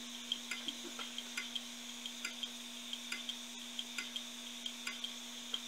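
Failing 1TB Toshiba hard drive running with its top cover off: the platter spins with a steady hum and hiss while the read/write head ticks several times a second. This is the click of death: the head fails to read, moves off the platter and parks, over and over.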